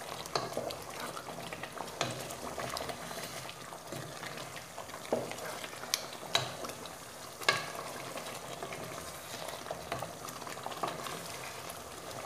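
Wooden spoon stirring pieces of meat through a thick tomato sauce in a pot, with several sharp knocks of the spoon against the pot, over a steady sizzle of the sauce frying.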